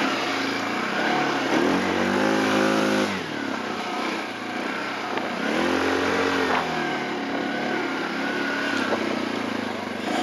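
ATV (quad) engines running, with the engine note revving up and falling back twice, about two seconds in and again about six seconds in.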